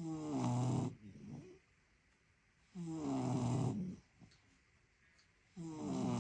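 Two sleeping beagles snoring in unison: three loud snores about three seconds apart, each about a second long and starting with a falling pitch, with a fainter one just after the first.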